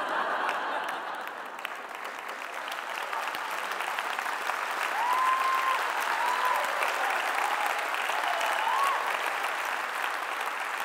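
Audience in a large hall applauding steadily, the clapping swelling a little in the middle.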